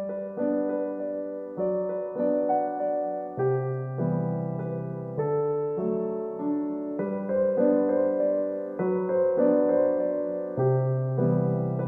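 Background piano music: slow, gentle piano chords changing about every second or two.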